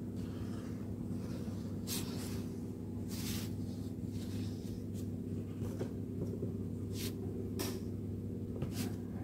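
A tube of glue and a paper sheet being handled: about six short scraping and rustling sounds from the nozzle and fingers on the paper, over a steady low hum.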